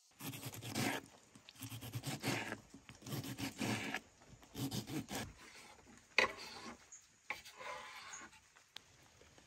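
Kitchen knife cutting through tomatoes on a wooden chopping board in a run of rough, rubbing strokes. Then a sharp knock, the loudest sound, and another knock and a scrape as the diced tomato is pushed off the board into a bowl.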